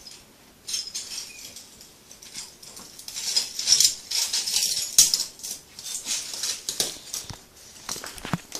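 Broken bottle glass crunching and crackling under a person's bare back as he settles onto the shards. It is a dense run of small sharp cracks that thickens about three seconds in. The shards are cracking under his weight.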